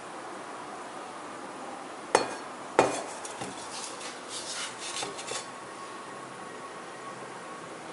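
Small metal nails set down on a hard tabletop: two sharp clinks a little over two seconds in, then a run of lighter clicks and taps.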